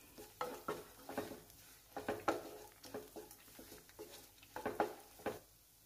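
Wooden spatula stirring and scraping chopped onions and spices around a non-stick kadai while they fry: soft, irregular scrapes and taps.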